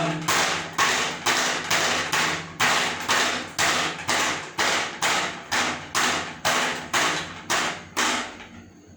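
Steady, evenly paced banging, about two and a half sharp knocks a second, which stops shortly before the end.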